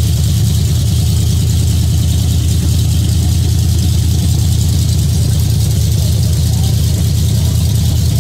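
Race car engine idling steadily: a loud, unchanging low rumble with a hiss on top.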